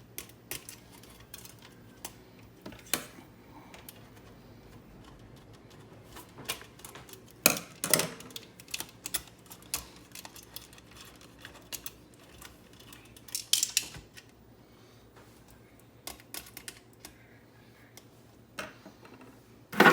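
Scattered clicks, taps and knocks of the plastic parts of a Keurig coffee maker being handled and taken apart, with a louder clatter about seven and a half seconds in and another about thirteen seconds in.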